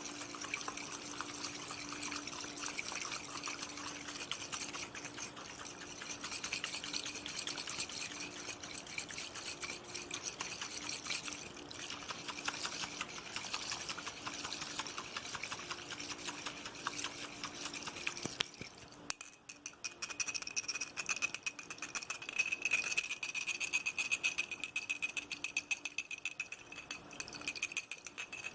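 ASMR water sounds close to the microphone: a fine, steady trickling and splashing. About two-thirds of the way through it stops briefly, then gives way to fast tapping on a hard object that rings with a steady tone.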